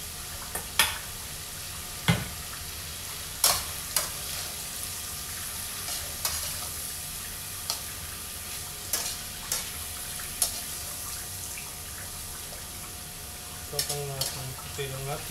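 Chicken, liver and vegetables sizzling steadily in hot oil in a pan as they are stir-fried, with irregular sharp clicks and scrapes of a slotted metal spatula against the pan as it tosses them.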